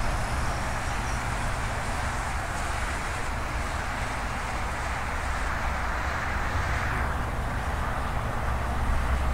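Steady jet engine noise from airliners on the airfield, with wind rumbling on the microphone. The higher hiss eases about seven seconds in.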